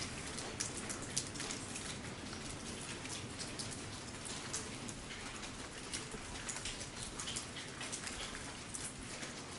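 Heavy rain falling on a derelict building, a steady hiss with many scattered sharp drips and taps.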